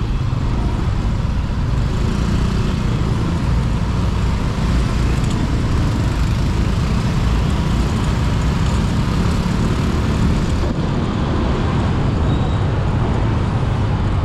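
Steady road and traffic noise heard from a motorbike riding in slow city traffic, dominated by a low rumble.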